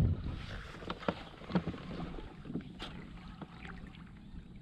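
Small choppy waves lapping and slapping against a kayak hull, with scattered irregular taps and splashes.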